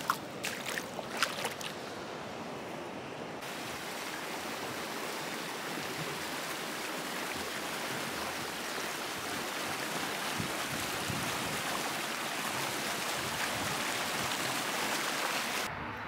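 A few sharp little splashes in shallow water in the first couple of seconds. Then, from about three seconds in, the steady rushing of a shallow stream running over rocks, growing slightly louder.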